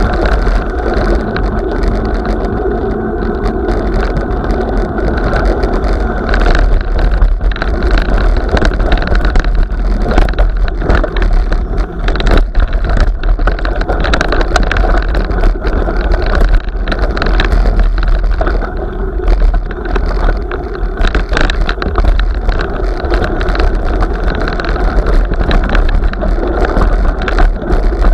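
Steady rumble of a vehicle-mounted camera travelling over packed snow and icy ruts, with many small knocks and rattles as it jolts over the bumps.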